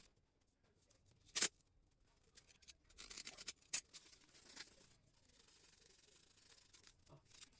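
Faint handling of fibre filament tape on a foam tail piece: a sharp crackle about a second and a half in, then a rasping stretch about three seconds in as tape comes off the roll, with a few more clicks.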